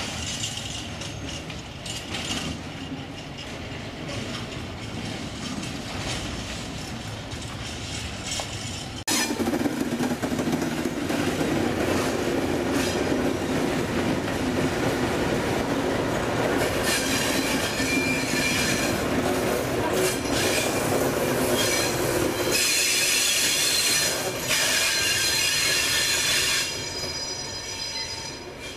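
Freight train of empty timber stake wagons behind a BR 232 diesel locomotive rolling slowly past, the wheels squealing in high steady tones over the rumble of rolling stock and the locomotive's diesel. The sound jumps louder about a third of the way in, and the squeal is strongest in the second half before it fades near the end.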